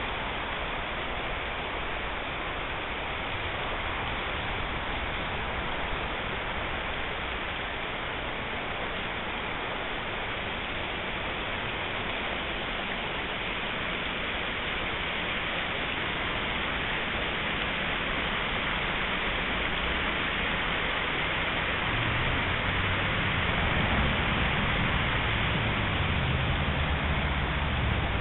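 Steady rushing of river water running over shallow riffles, with a low rumble growing in over the last several seconds.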